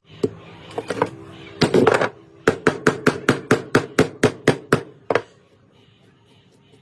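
Hammer tapping: a few scattered knocks, then a quick, even run of about a dozen strikes, some five a second, that stops about five seconds in.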